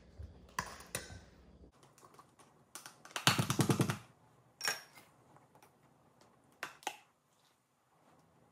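Metal spoon clinking and tapping against a canning funnel and glass jar as apple slices are spooned in, with a denser clatter of several quick knocks about three seconds in.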